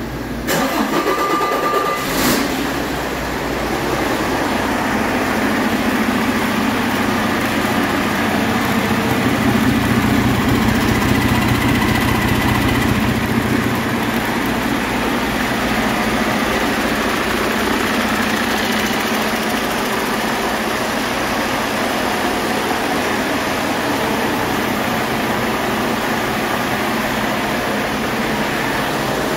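A Detroit Diesel DD13 inline-six truck diesel is started on a test stand. It cranks with a brief starter whine and catches about two seconds in, then runs steadily, a little louder between about 8 and 14 seconds.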